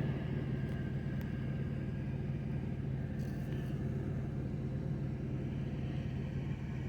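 Steady low engine hum of an idling vehicle, an even rumble that holds constant throughout.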